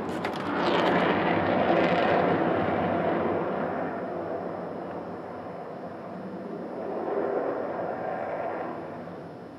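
Jet roar of an Avro Vulcan delta-wing bomber's four Rolls-Royce Olympus engines as it flies past. Loudest a second or two in, it eases off, swells again about seven seconds in, and then fades away near the end.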